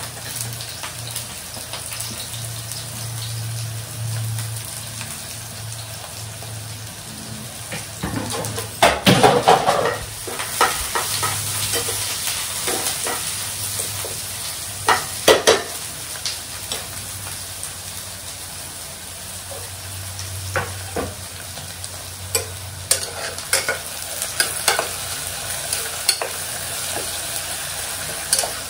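Food sizzling in hot oil in a cooking pot while a spoon stirs it, scraping and knocking against the pot now and then, most loudly about nine and fifteen seconds in.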